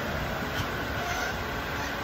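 Steady rumbling background noise, like a fan or machine running.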